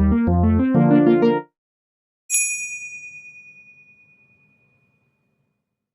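Comic sound effects: a short musical sting of a few quick notes over a deep bass, then, after a brief gap, a single bright ding that rings out and fades over about two seconds.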